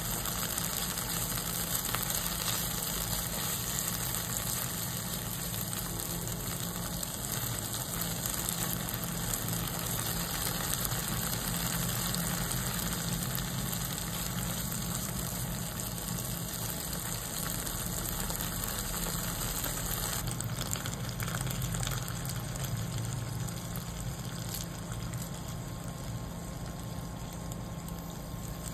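Red curry paste sizzling and bubbling as it fries in oil in a nonstick pan, over a steady low hum.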